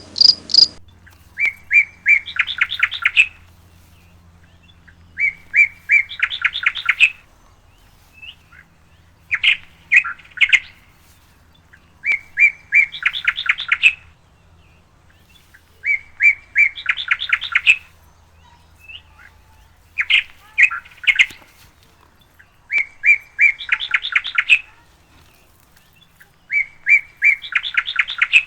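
A songbird singing the same short phrase over and over, about every three to four seconds: a few quick notes, then a faster trill.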